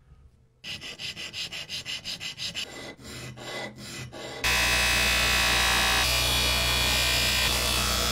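Fast back-and-forth rubbing strokes over wood, about five a second. About four seconds in, a spinning bench wheel starts a loud, steady whir with a low hum, a small metal nut held against it.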